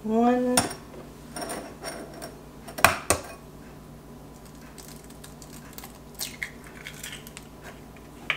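Glass bowl clinking on the counter and an egg tapped against the bowl's rim: a few sharp clicks, the loudest two close together about three seconds in, then lighter ticks.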